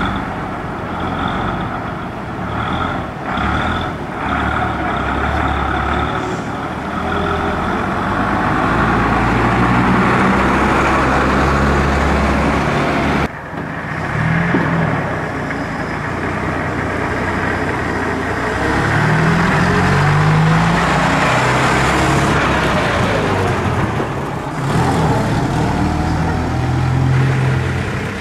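Vintage buses' diesel engines running as the buses manoeuvre and pull away, with the engine note rising and falling as they accelerate through the gears. The sound breaks off abruptly about 13 seconds in and picks up again.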